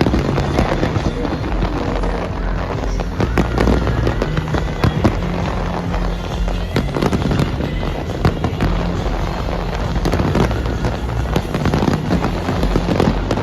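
Fireworks display going off continuously, with rapid bangs and crackling shells, and music playing underneath.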